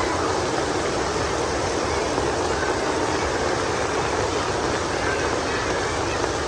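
Heavy rain falling: a steady, even rush of water with no break or change.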